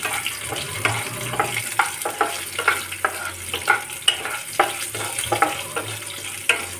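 Chopped green chillies sizzling in hot ghee with mustard seeds, cumin and dals, a wooden spatula stirring them around a nonstick kadhai. Steady frying hiss with many short, irregular crackles and scrapes.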